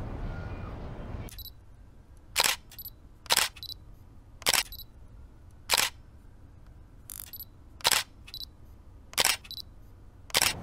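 Camera shutter clicks, about eight of them at roughly one every second and a quarter, each a quick double click. Before the first click, the open-air city hum of the lookout cuts out about a second in.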